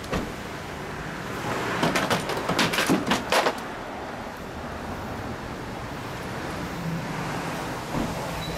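Satin jacket rustling and swishing as it is pulled on and settled over the shoulders, a run of brisk swishes between about two and three and a half seconds in, over a steady background hum.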